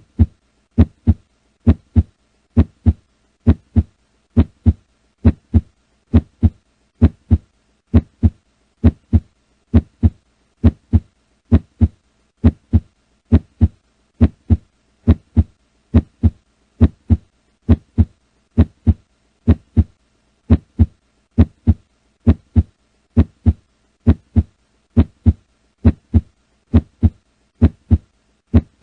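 Normal heart sounds heard through a stethoscope recording: the first and second heart sounds (S1 and S2) repeat as a steady lub-dub, about one pair a second. A short pause separates each dub from the next lub.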